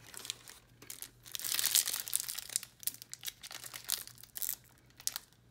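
Foil trading-card booster pack wrapper crinkling and tearing as it is worked open by hand, in irregular crackles that are loudest about a second and a half in and thin out near the end.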